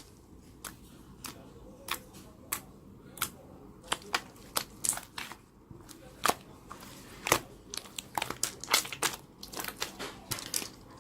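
Slime being squeezed and worked by hand, making irregular sharp clicks and pops, sparse at first and coming faster in the second half.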